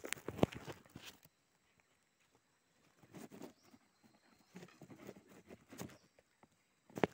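Bamboo sticks and twigs handled in dry leaf litter while a snare is set: a cluster of knocks and rustles in the first second, then scattered rustling, and one sharp knock near the end.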